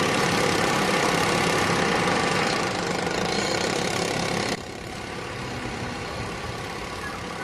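A motor or engine running steadily, the sound of machinery. A little past halfway it drops suddenly to a quieter, similar running noise.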